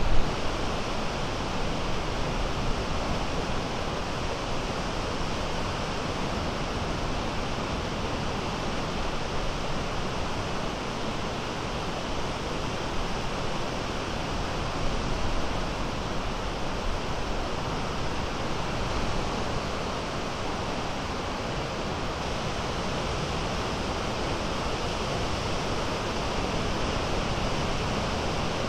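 Steady, even rush of small lake waves breaking on a sandy beach, with wind rumbling on the microphone.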